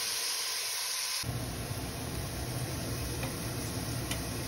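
Diced onion, carrot and celery sizzling in melted ghee in a large stainless steel pot: a steady frying hiss. About a second in it suddenly turns duller, with a low rumble underneath and a few faint ticks.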